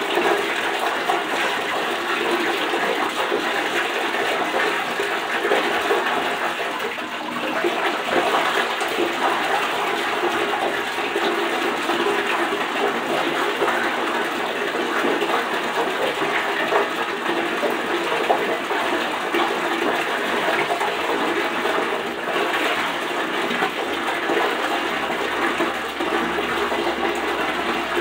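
Water running steadily from a bathtub faucet into the tub.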